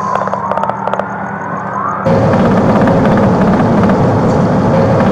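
Inside a moving police patrol car: a siren glides up and down while a rapid rattle of sharp pops runs for about two seconds. About two seconds in, a loud steady rush of engine and road noise takes over.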